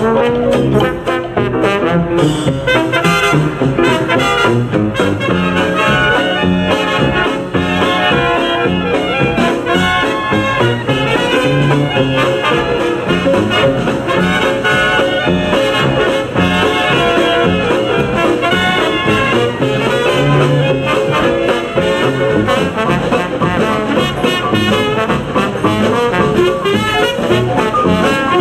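Background music led by brass instruments, in a swing-jazz style.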